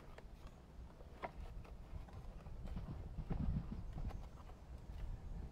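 Boxes and packaging being handled: scattered light knocks and taps, with a low rumble of things being moved about halfway through.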